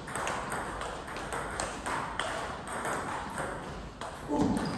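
Table tennis rally: the ball clicking off the bats and bouncing on the table in quick succession. A short, loud voice sounds near the end.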